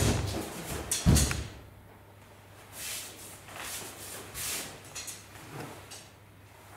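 Two loud, sharp wooden knocks about a second apart from shuriken throwing: bare feet landing on the wooden dojo floor and a shuriken striking the target board. Soft rustles of clothing follow as the thrower moves.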